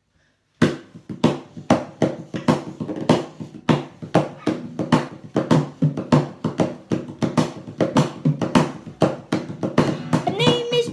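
Acoustic guitar strummed in a steady rhythm, about two or three strokes a second, as an intro to a song; a voice comes in near the end.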